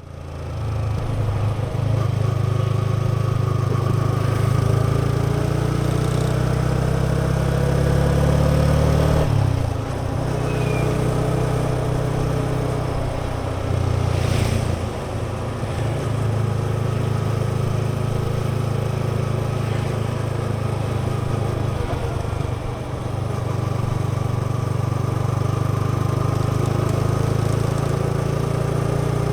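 Yamaha XSR 155's single-cylinder engine and exhaust while riding: the revs climb for several seconds and drop suddenly about nine seconds in, then the bike mostly holds steady revs.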